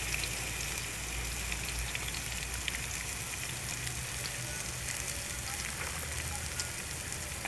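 Sliced bitter gourd (karela) frying in hot ghee in an aluminium karahi: a steady sizzle with scattered small crackles.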